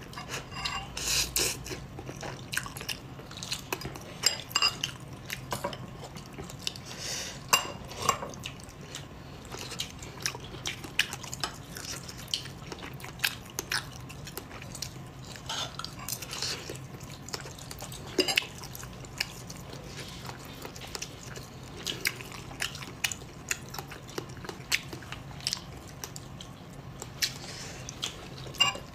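Fork clinking and scraping against a ceramic bowl while instant noodles are eaten, with chewing between the scattered sharp clicks. A low steady hum runs underneath.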